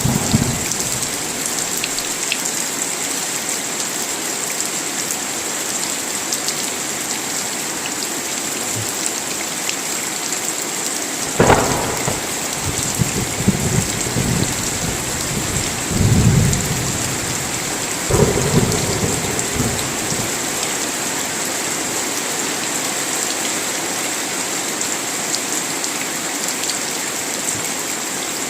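Steady heavy rain with a steady high hiss in it. A sharp thunderclap comes about eleven seconds in, followed by several low rolling rumbles of thunder over the next eight seconds or so.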